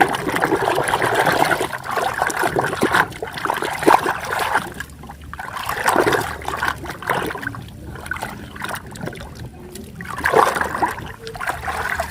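Water running and splashing unevenly as a muddy toy truck is washed clean.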